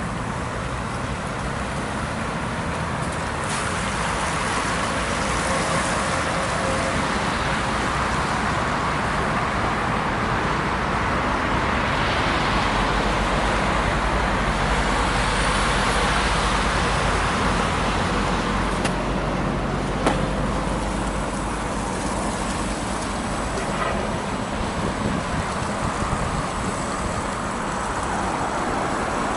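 Road traffic going by in a city street, heard over steady wind noise on the microphone of a moving rider, with a single sharp knock about two-thirds of the way through.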